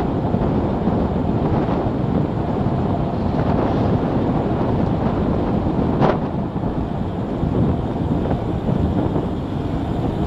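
Road and wind noise of a Milan Mk4 velomobile rolling at speed: tyre rumble on the asphalt with wind buffeting the microphone, a steady low rush. A single sharp knock about six seconds in.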